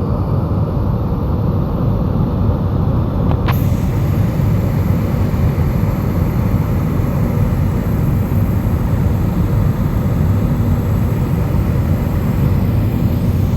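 Steady low rumble of an Airbus airliner's cabin, engine and airflow noise, with a single short click about three and a half seconds in.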